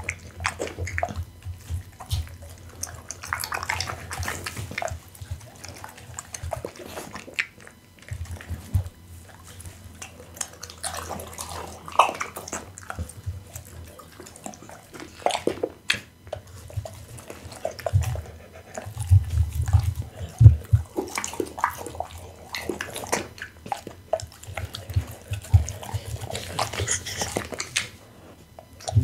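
Pit bull eating raw meat chunks close to the microphone: wet, irregular chewing, smacking and licking, with scattered sharp snaps and bouts of low thuds.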